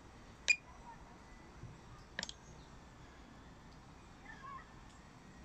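A fingertip tapping a phone's touchscreen: one sharp tap, then a quick double tap a little under two seconds later. A faint, short animal call comes near the end.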